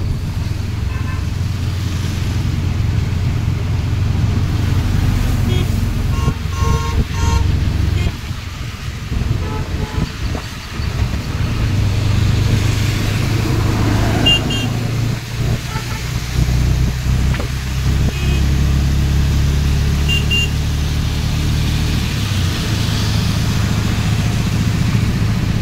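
Auto rickshaw's engine running steadily under way, with wet tyres and rain hissing on the road. Several short horn toots from surrounding traffic, a quick run of beeps about six seconds in and single toots later on.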